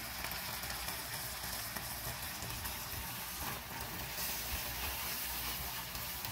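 Beef strips, onion and garlic frying in a pan, sizzling steadily as tomato sauce is stirred in with a silicone spatula.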